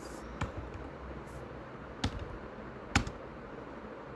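Three separate computer keyboard key clicks, the last the loudest, over faint steady background noise.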